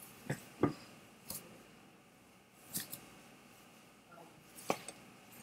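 A few faint, short clicks and knocks, about five spread over a few seconds, with quiet room tone between them.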